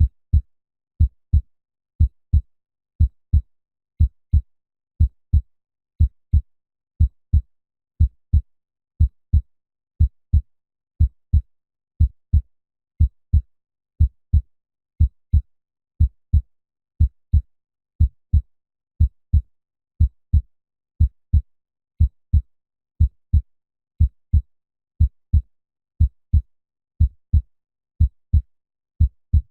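Human heartbeat at 60 beats a minute: a deep double thump, lub-dub, about once a second, steady and even throughout.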